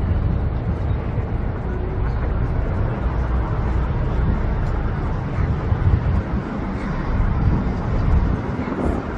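Steady city ambience: a low, continuous traffic rumble with a faint murmur of crowd voices underneath.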